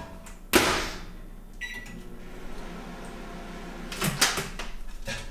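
Built-in microwave oven door shut with a knock about half a second in, followed by a short beep from the keypad and a low steady hum. A few clicks of the keypad buttons being pressed come near the end, setting a short heating time to soften fondant.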